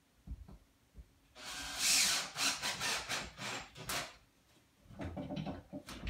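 Two light knocks, then about three seconds of scraping and rubbing against the wooden garage door panel, with a shorter stretch of the same rubbing near the end.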